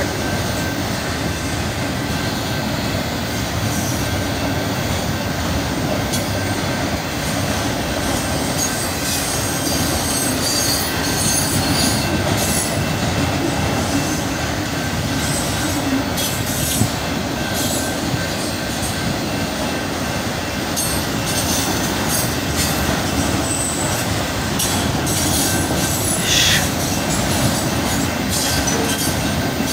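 Freight train of autorack cars rolling steadily past a grade crossing: a continuous rumble and clatter of steel wheels on the rails. A brief high-pitched wheel squeal comes about 26 seconds in.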